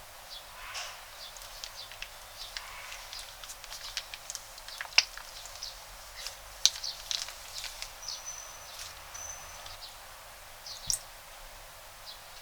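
Crunchy slime being squeezed and worked, giving irregular small crackles and pops.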